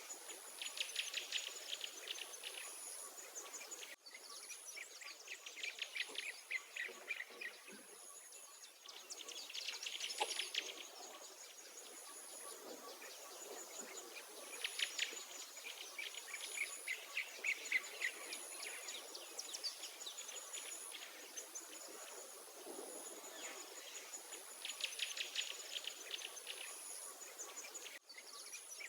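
Wild songbirds singing rapid trilled songs, one after another and sometimes overlapping, over a high insect chirp that repeats about once a second.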